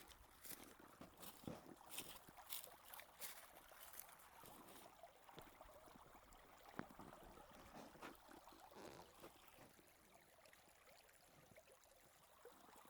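Faint trickle of a shallow creek running over rocks, with a few light crunching steps in the first few seconds.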